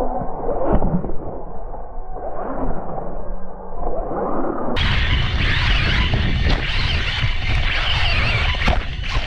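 Losi Promoto-MX electric RC motocross bike running on loose dirt, heard from a GoPro mounted on the bike: motor, tyres and rushing air, with a knock about a second in. About halfway through the sound suddenly turns much louder and brighter, a rough rushing of wind and dirt, with a couple of sharp knocks near the end.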